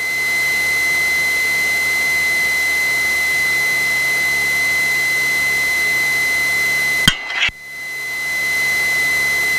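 Cessna Skyhawk's engine idling with the propeller turning, heard as a steady rushing noise with a constant high-pitched whine over it, as picked up through the cockpit headset audio. About seven seconds in there are two clicks and a brief drop in the noise before it builds back up.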